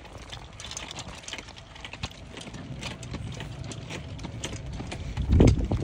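Walking sounds: footsteps and the light knocking and clatter of a carried golf bag, irregular short clicks over a low rumble. Near the end a brief gust of wind buffets the phone's microphone, the loudest moment.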